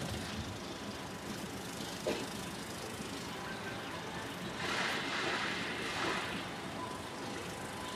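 Steady hum of a generator engine running, with open-air ambience around it. A single knock about two seconds in, and a brief hissing rush between about four and a half and six seconds.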